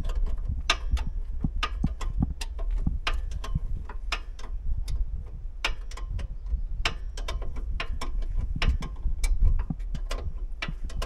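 Hand ratchet clicking in short, uneven strokes, about two or three clicks a second, as clamps on a Bobcat skid steer's engine are tightened.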